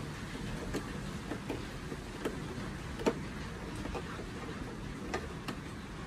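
Small screwdriver working the screws in the plastic base of a toy kitchen stove: light, irregular clicks of the metal tip against the screw heads and plastic, roughly one a second, the sharpest about three seconds in, over a steady low hum.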